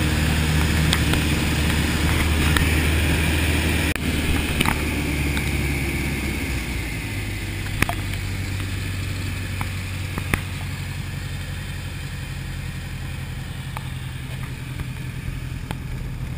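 Light aircraft's piston engine and propeller, heard from inside the cockpit with a rush of air over the airframe during aerobatics. The engine note drops to a lower, quieter level about six seconds in, and a few sharp clicks sound in the cabin.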